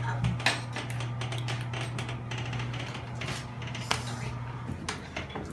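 Electric dental chair's motor humming steadily as it raises the patient upright, cutting off near the end. Several sharp clicks and taps sound over it.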